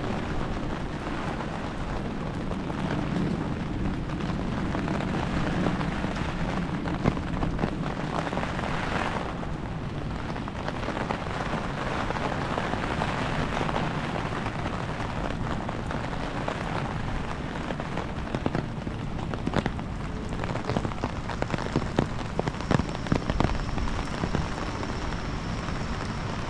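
Rain falling in wind: a steady hiss with many small drops ticking and pattering, and a low rumble in the first several seconds. A faint high steady tone sounds briefly near the end.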